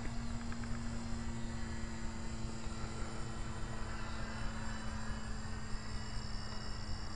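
Radio-controlled P-40 model plane flying overhead: its motor and propeller hum steadily, with a whine rising in pitch about halfway through as it passes, over a low rumble.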